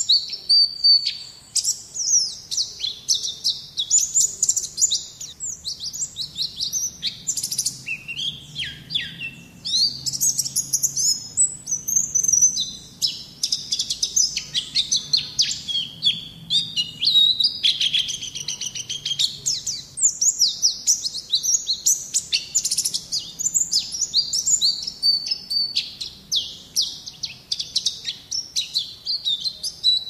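White-eye (pleci, Zosterops) singing a fast, unbroken twittering song of quick high-pitched chirps, sweeps and trills, in the wild 'ngalas' style.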